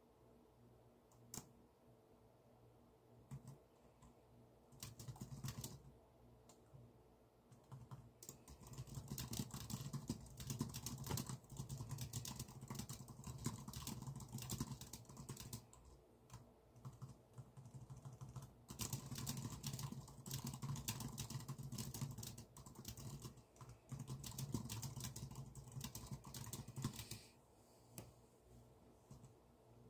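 Typing on a computer keyboard: a few single keystrokes at first, then runs of fast typing from about eight seconds in, broken by short pauses, and thinning out near the end.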